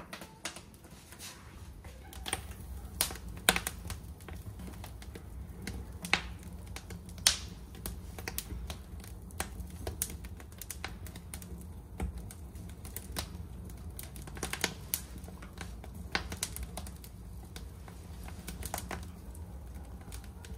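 Wood fire crackling in a brick corner fireplace: irregular sharp pops and snaps, a few louder than the rest, over a steady low hum.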